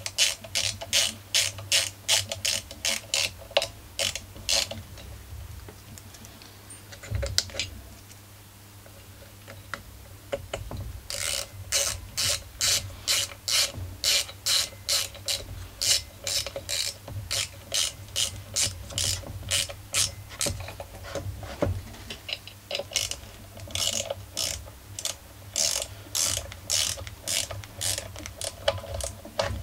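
A hand-worked ratchet clicking in an even run, about two to three clicks a second. It stops for several seconds about five seconds in and starts again about eleven seconds in.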